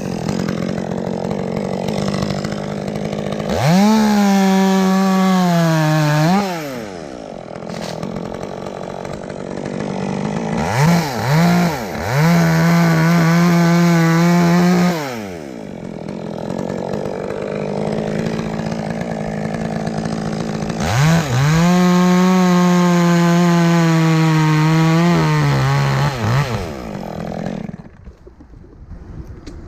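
Chainsaw idling and revving up for three long cuts into dead tree wood, about four seconds in, around the middle and about two-thirds through, its pitch sagging under load in each cut. There are short throttle blips between the cuts, and the engine drops away near the end.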